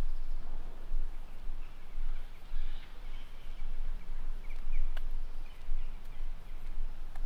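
Outdoor park ambience: a low rumble that rises and falls, with a few short bird chirps in the middle.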